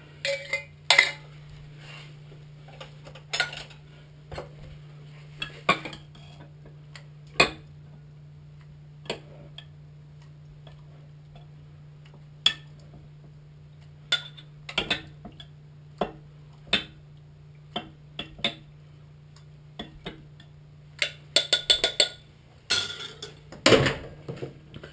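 Kitchen clatter of containers, glass jars and dishes being handled on a countertop: scattered sharp clinks and knocks, bunching into a thicker run near the end, over a steady low hum.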